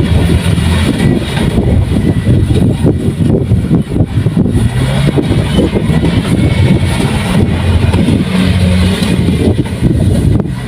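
Kubota rice combine harvester running: its diesel engine holds a steady note that shifts slightly in pitch, over a continuous low mechanical rattle.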